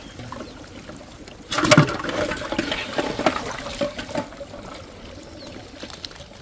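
Water splashing and trickling. A sudden loud splash comes about a second and a half in, followed by a couple of seconds of smaller irregular splashes and drips that die down.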